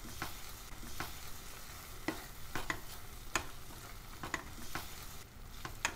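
Silicone spatula stirring a thick tomato-cashew gravy in a nonstick kadhai, with soft irregular clicks and scrapes against the pan over the faint steady sizzle of the simmering gravy, which is now cooked and ready.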